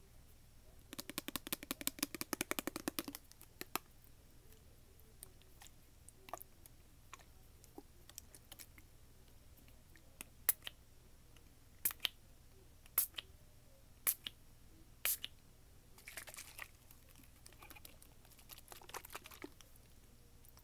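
Quiet, crisp clicking and tapping: a rapid flurry of clicks for about two seconds, then single sharp clicks about once a second, and two short scratchy patches near the end.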